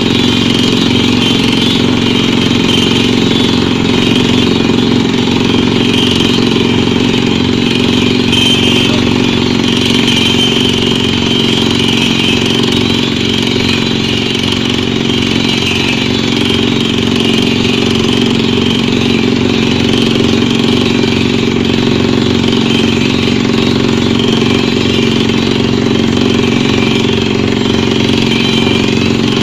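Pneumatic drilling rig running: a loud, steady, engine-like drone that holds even throughout.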